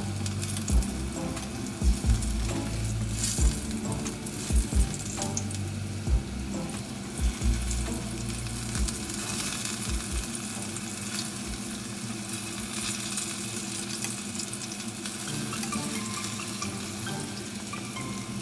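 Food sizzling as it fries in a pan, with stirring and a string of dull knocks during the first half or so.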